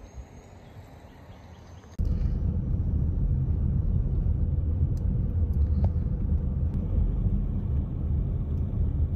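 Low, steady rumble of an SUV driving on a paved road, heard from inside the cabin, starting abruptly about two seconds in after a quieter stretch of outdoor ambience.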